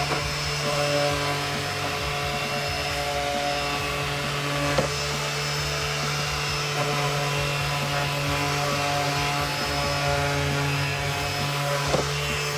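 Makita 18V cordless random orbit sander running steadily with its pad pressed on a pine board, sanding the wood, with a couple of short knocks about five seconds in and near the end.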